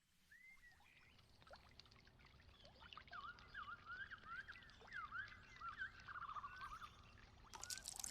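Faint high chirping calls, short rising and falling notes repeated many times, over a low rumble. Near the end a crackling hiss sets in.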